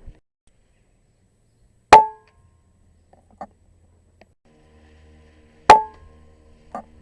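Two air rifle shots, each a sharp crack with a brief metallic ring, a little under four seconds apart. Each is followed about a second later by a much fainter click.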